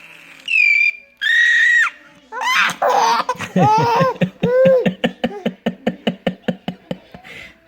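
Baby laughing hysterically: two held high-pitched squeals in the first two seconds, then a long run of rapid laughs, about five a second, fading out near the end.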